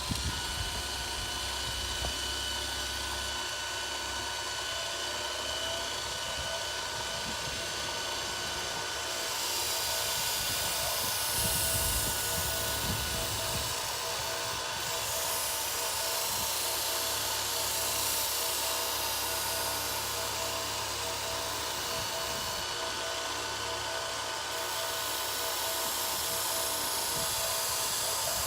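Electric knife-sharpening machine running with a steady whine, with a grinding hiss that swells and fades as blades are worked against it.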